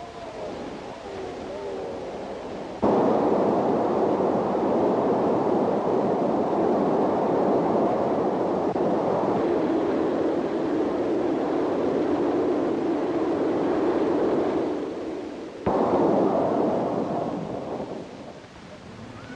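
Steam locomotive running: a wavering whistle tone dies away in the first few seconds, then a loud, steady rush of steam and train noise cuts in abruptly about three seconds in. It breaks off sharply near the end, comes back for a couple of seconds and fades.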